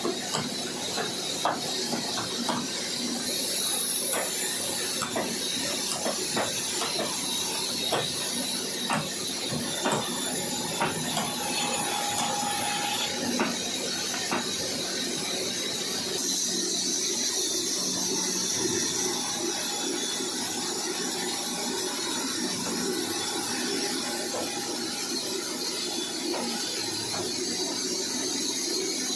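Sawmill machinery running with a steady high hiss, as a saw works through a log. Irregular clicks and knocks come through the first half and give way to a steadier sound after about halfway.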